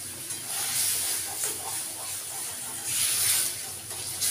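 Hot water hissing and sizzling in a metal kadai of frying potato and poppy-seed mixture as it is stirred with a metal ladle. The hiss swells about a second in and again around three seconds in.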